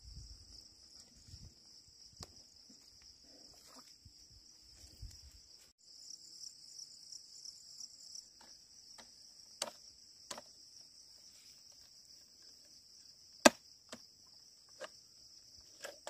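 Steady high-pitched chorus of insects, pulsing for a couple of seconds near the middle. In the second half come a few sharp knocks, one much louder than the rest.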